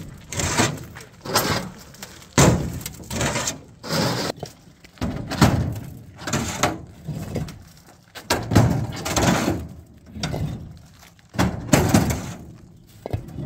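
Hollow concrete blocks knocking and scraping as they are moved in a pickup truck's bed and set down on a stack, an irregular series of clunks about one a second.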